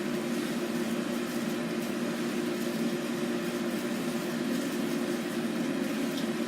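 A steady, unchanging hum with a hiss over it.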